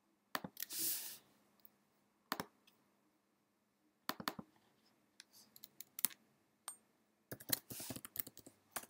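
Computer keyboard and mouse clicks: a few separate clicks spaced over several seconds, then a quick run of key presses near the end as a name is typed.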